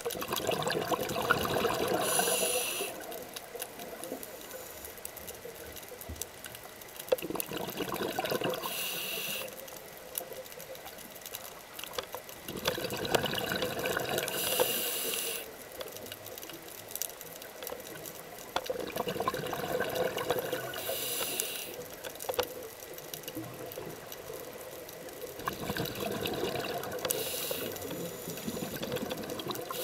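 A diver's scuba regulator breathing underwater: slow breaths about every six seconds, each a rush of air and bubbles ending in a short high hiss, five in all.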